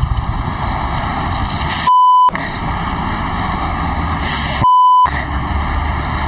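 Two censor bleeps, each a steady 1 kHz tone of under half a second, about two seconds in and again near five seconds, cutting out everything else while they sound. Between them a steady rumble of wind and highway traffic.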